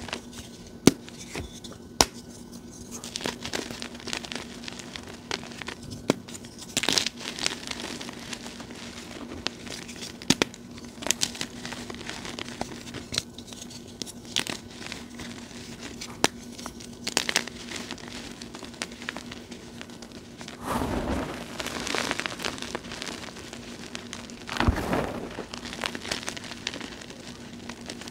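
Blocks of gym chalk snapped and crushed by hand, then crumbled into powder: sharp cracks scattered through, with louder stretches of gritty crunching.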